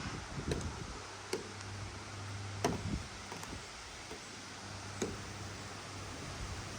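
Gusty wind noise with a few sharp knocks and clicks, the loudest about two and a half seconds in, over a low steady hum.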